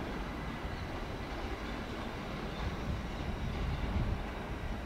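SBB Re 4/4 II (Re 420) electric locomotive running light over the points, heard as a low steady rumble that grows a little louder about three to four seconds in.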